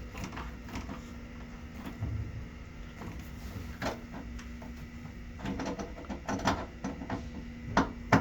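Scattered small clicks and knocks of a screwdriver turning and seating a sleeve screw through a cabinet panel, the sharpest knocks near the end, over a faint steady hum.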